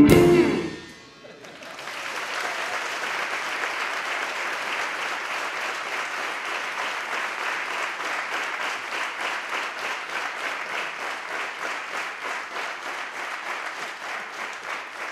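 A band's final chord ends about a second in, then an audience applauds steadily, dying down slightly toward the end.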